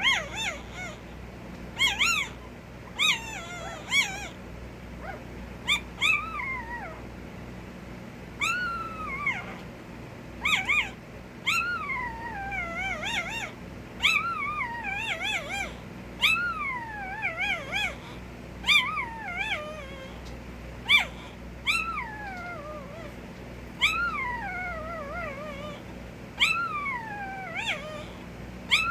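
A puppy whining and crying: high-pitched cries that slide downward and waver in pitch, repeating every second or two, mixed with brief sharp cries.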